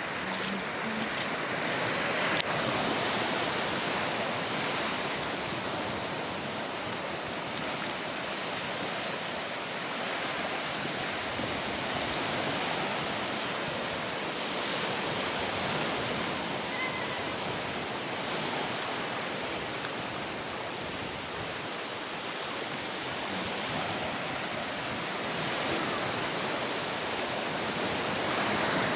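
Sea surf breaking and washing ashore, a steady rush of waves that swells and eases, with one sharp click about two seconds in.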